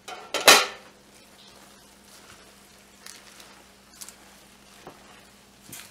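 Wilted kale being stirred into pasta in a pot with a silicone spatula: soft squishing and rustling of the leaves over a faint sizzle, with a few light knocks against the pot. One loud clatter about half a second in.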